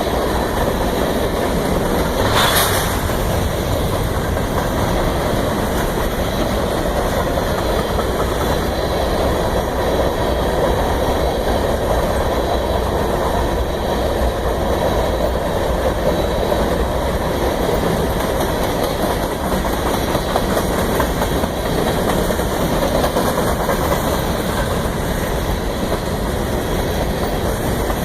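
Union Pacific freight train running by with a steady, unbroken rumble of engines and wheels on rail, and a brief sharp clank about two and a half seconds in.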